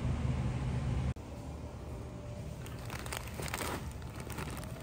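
A steady low hum that cuts off about a second in. Then, in the second half, the plastic bag of a 5 lb sack of popcorn kernels crinkles in a run of short crackles as a hand grabs and handles it.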